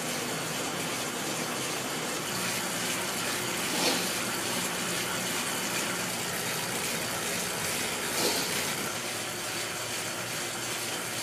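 Indoor bike trainer running under hard pedalling: a steady whooshing whir with a faint low hum, swelling briefly twice.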